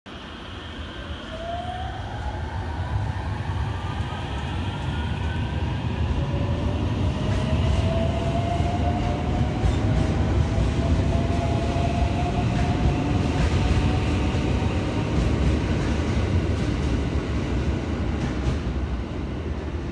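521 series electric train pulling away from a station platform. The motors give a whine that rises in pitch as it speeds up, over a rumble of wheels on rail that grows louder as the cars pass, with a few faint clicks from the track.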